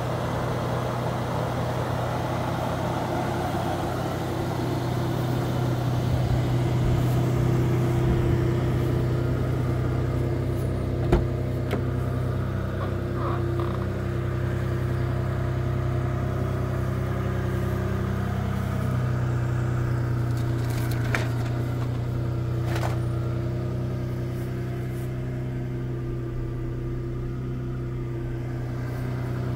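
Rebuilt 3.4-litre V6 of a 1999 Toyota Tacoma idling steadily, with one sharp click about eleven seconds in.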